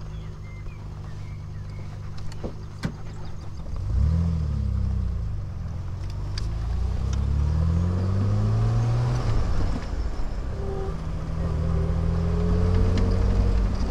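Triumph Vitesse 2 Litre's straight-six engine running at low revs, then pulling away about four seconds in, its note rising and dropping back with the gear changes before it settles into a steady run.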